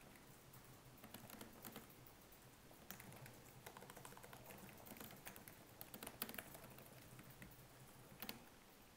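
Faint typing on a computer keyboard: a quick, irregular run of key clicks as a sentence is typed.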